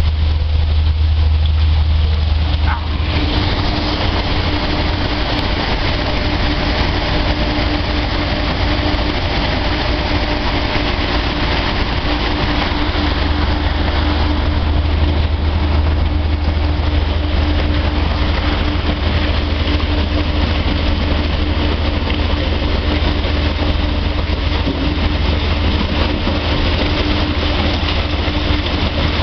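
Heavy machinery running steadily with a strong low hum. About three seconds in, a louder rushing noise and a steady humming tone join in and carry on.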